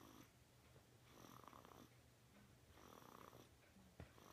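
Newborn baby snoring softly in his sleep, a faint snore on each breath roughly every one and a half to two seconds. A small click comes near the end.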